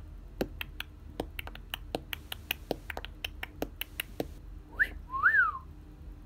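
Cockatiel whistling: a short rising chirp, then a louder whistle that rises and falls, near the end. Before it, a run of quick sharp clicks, several a second.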